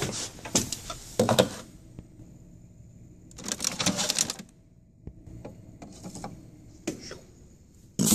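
Plastic clicking and clattering as a K-cup pod is handled and set into the pod holder of a Keurig coffee brewer. There are short runs of rapid clicks at the start and again about three and a half seconds in, a few single clicks after that, and a sharp clack near the end.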